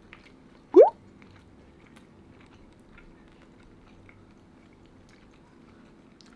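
A short, loud tone sliding quickly upward in pitch about a second in, then quiet chewing with small clicks of metal spoons against paper takeout boxes.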